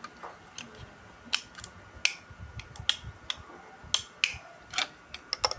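Scattered sharp plastic clicks and taps, about a dozen at irregular intervals, from toy figure pieces being handled and set down.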